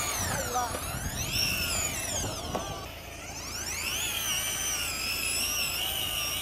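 Electric fishing reel's motor whining as it winds against a large hooked fish: its pitch sags and recovers twice as the fish pulls, then holds steady for the last couple of seconds.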